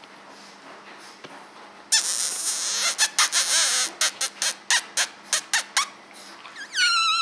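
French bulldog puppy giving a high whine that falls in pitch, near the end. Before it comes a loud hissing rush that breaks into a quick run of short sharp puffs.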